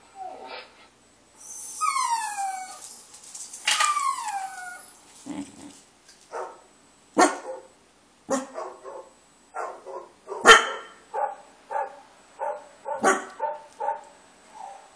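Dog whining in two long falling glides, then a corgi barking angrily in a run of short barks, about two a second, the loudest near the middle.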